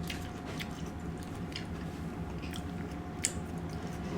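A person chewing a mouthful of food close to the microphone, with small irregular clicks and smacks, one sharper about three seconds in.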